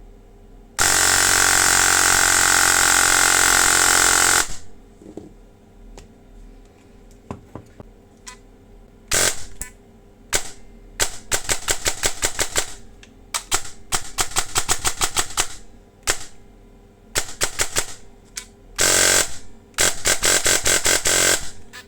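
Airsoft electric gun with a T238 brushless motor and 18:1 DSG gearbox firing: one long full-auto burst of about four seconds, then a string of short bursts and rapid shots in the second half. The gearbox noise is what the owner takes for a gearbox that is not well shimmed.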